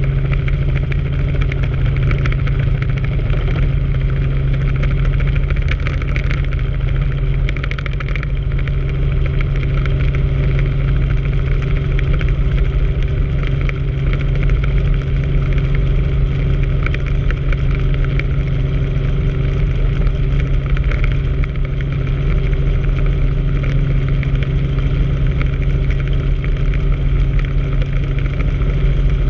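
Helicopter engine and main rotor running steadily in low, level cruise flight, heard from inside the cockpit as a constant low drone.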